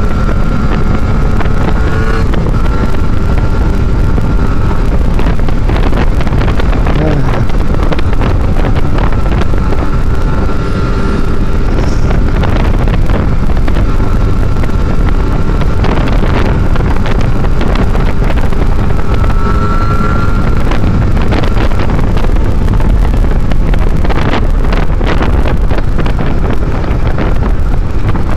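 Wind buffeting the action camera's microphone during a ride, over the Kawasaki Ninja RR 150's two-stroke single-cylinder engine running at road speed, its pitch drifting slightly up and down.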